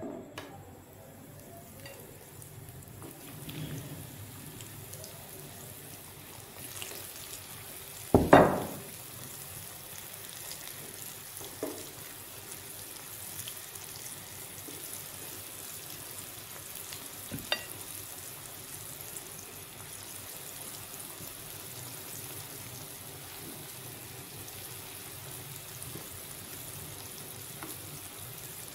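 Mutton chops coated in cornflour sizzling as they fry in shallow oil in a pan, the sizzle getting fuller as more pieces go in. A sharp knock about eight seconds in is the loudest sound, with two fainter knocks later.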